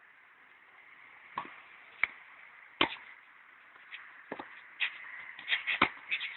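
Tennis rally on a clay court: a series of sharp pops from the ball being struck by rackets and bouncing. The pops are spaced a second or so apart at first and come thicker and louder near the end.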